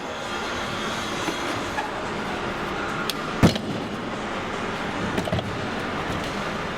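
Steady noise of a refrigerator dismantling and recycling workshop, with a few sharp knocks, the loudest a single bang about three and a half seconds in.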